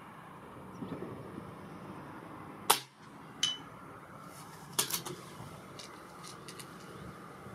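A single shot from a .177 PCP air rifle, the Reximex Throne Gen-2, a sharp crack a little under three seconds in. About three quarters of a second later comes a fainter click with a short ring, which fits the pellet striking the target 100 m downrange. A few lighter clicks follow about two seconds after the shot.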